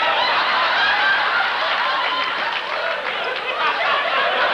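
Studio audience laughing, many voices at once at a steady level.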